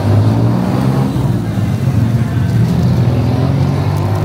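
Motor vehicle engine running close by in street traffic, a steady low rumble.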